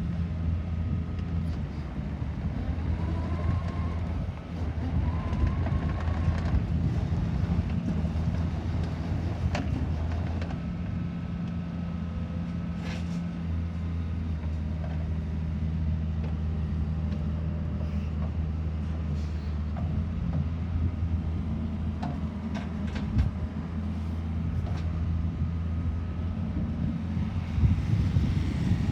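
Diesel engine of a Wacker Neuson 50Z3 midi excavator running steadily, with a couple of short rising whines a few seconds in and occasional clicks and knocks as the machine is worked.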